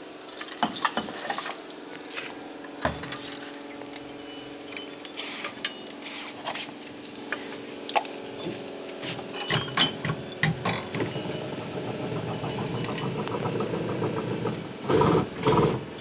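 Scattered clinks and knocks as a six-trumpet Roots Hexatone air horn assembly is handled and lifted into place under a bus, over a steady engine hum. The hum grows louder in the last few seconds, with two louder bursts near the end.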